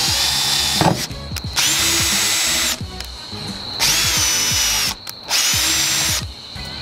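Makita cordless drill boring mounting holes through a car's metal trunk lid, run in four short bursts of about a second each with brief pauses between.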